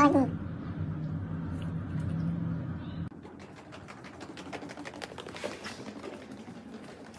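A cat's meow trailing off, then a steady low hum. From about three seconds in, a quick run of light ticks and taps.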